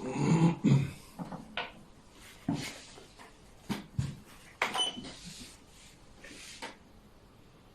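Xiangqi pieces knocking and clacking on the board: a quick cluster of loud knocks in the first second, then single clacks every second or so.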